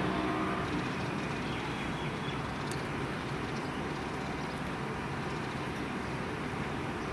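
Siemens electric suburban train approaching at low speed, a steady low rumble mixed with road traffic noise.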